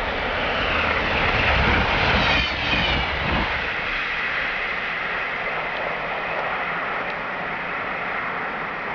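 Bombardier Regina electric multiple unit passing at speed: a rushing swell that peaks about two seconds in, with a few low wheel thumps as it goes by, then a steady rush as it runs away down the line.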